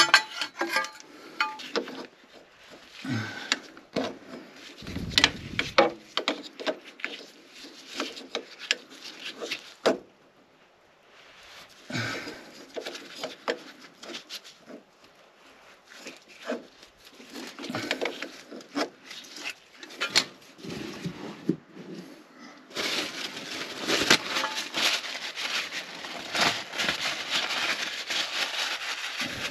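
Hands working under a car's engine: scattered small clicks and knocks of parts being unscrewed and handled around the oil filter. About three quarters of the way through, steady rustling and crinkling of a paper towel wiping the oil filter area takes over.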